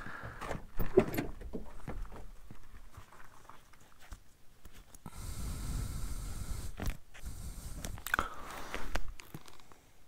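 Close handling noise of a hand-held camera: rustles with scattered knocks and clicks, and a low rumble for a couple of seconds in the middle.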